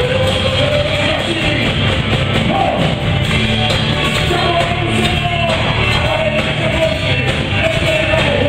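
Live worship band playing a rock-style song with a lead vocal singing the melody, loud and steady, echoing in a large hall.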